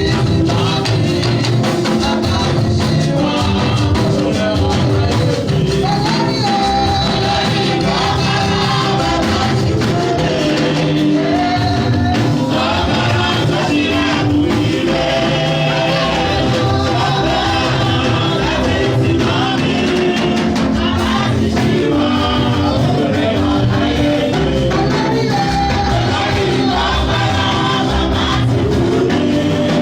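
Gospel music with singing over drums and percussion, playing at a steady beat without a break.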